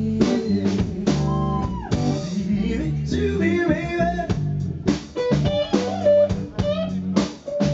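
Live blues-rock band playing: electric guitar, bass guitar and drum kit, with regular drum hits.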